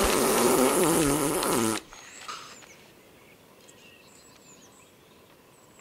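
A long, loud fart sound with a wavering pitch that cuts off abruptly about two seconds in. Faint bird chirps follow.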